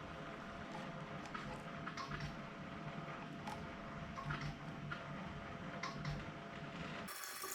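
Faint, scattered light clicks and taps of 3D-printed plastic cryptex parts being handled and fitted together, over a steady low room hum.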